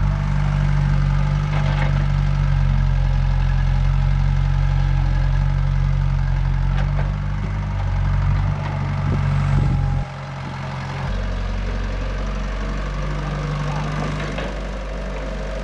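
Komatsu hydraulic excavator's diesel engine running steadily while it digs, with a few short knocks. The sound drops in level about ten seconds in.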